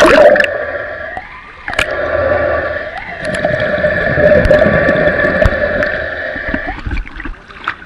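Swimming-pool water heard through a camera held underwater: a splash as it goes under, then a muffled underwater sound with a steady hum and scattered bubble clicks, which breaks off briefly about a second in and fades near the end.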